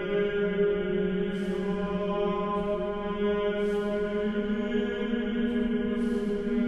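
A sustained, chant-like low drone rich in overtones, held without a break at a steady level; a few brief hisses sound over it.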